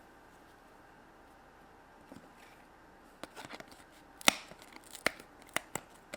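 Hands working modelling clay on a tabletop: quiet for about three seconds, then a run of small taps and clicks, the sharpest about four seconds in.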